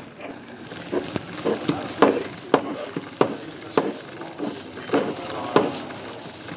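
Footsteps on a hard floor, a sharp tap about every half second to 0.7 s, with indistinct voices murmuring behind.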